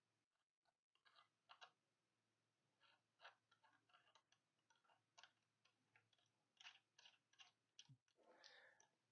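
Near silence broken by faint, irregular clicks and ticks of small watch parts and tools being handled, with a short soft rustle near the end.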